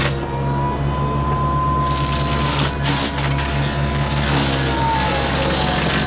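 Tractor engine running steadily under the high whine of a mulching mower head working through brush. The whine sags in pitch about four seconds in and climbs back near the end.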